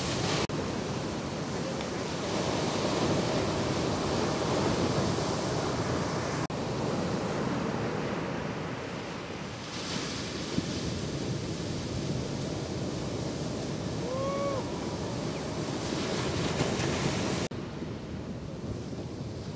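Ocean surf: waves breaking and washing in, a steady rushing noise with wind on the microphone. The sound changes abruptly three times, and a brief chirp-like tone comes about two thirds of the way through.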